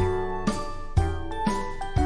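Background music: a light tinkling tune with a steady beat about twice a second.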